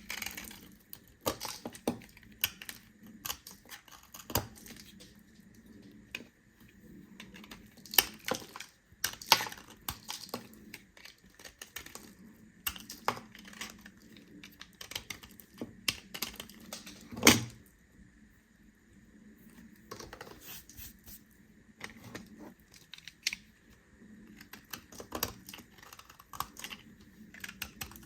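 A knife cutting through bars of soap, giving irregular sharp clicks and crunches as the blade breaks through, with one louder snap about two-thirds of the way through.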